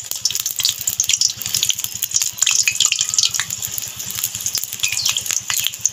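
Papad-wrapped samosas sizzling as they deep-fry in hot oil in a kadai: a dense crackling hiss full of small pops.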